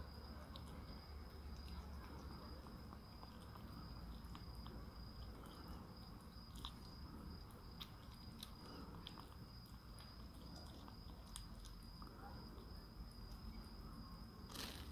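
Siamese kitten eating wet canned cat food from a ceramic dish: faint chewing with scattered small clicks.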